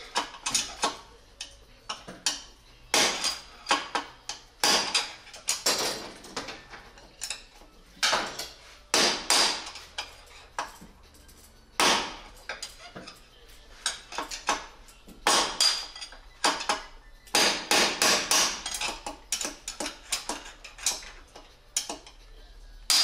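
Hammer striking a steel rod to drive the lower steering head bearing race out of a motorcycle's steering head. The whacks are sharp and metallic, many of them, coming in quick irregular bursts with short pauses between.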